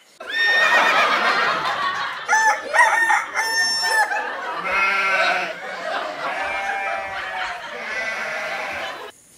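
Roosters crowing, one call running into the next. The crowing starts suddenly just after the start and cuts off sharply near the end.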